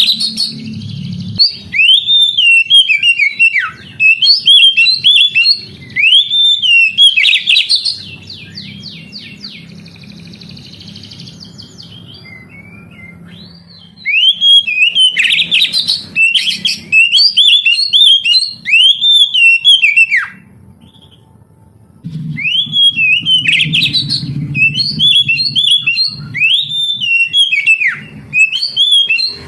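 Oriental magpie-robin (kacer) singing: loud phrases of quick, arching whistled notes repeated over and over, with a fast scratchy rattle about eight seconds in and short pauses between bouts of song. A faint low hum runs underneath.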